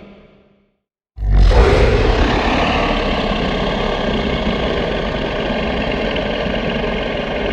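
Monster growl sound effect for the kaiju Gryphon: the tail of one growl fades out, and about a second in a new long, rough, rumbling growl starts suddenly and holds steady.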